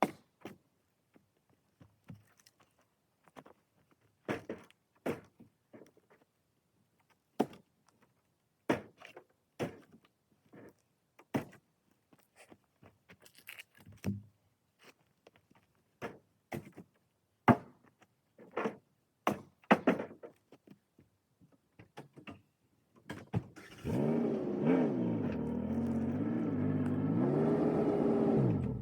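Repeated hard knocks of firewood pieces being thrown and landing one after another, about one every second or so. Near the end an engine starts and runs for about five seconds, its pitch rising and falling as it revs.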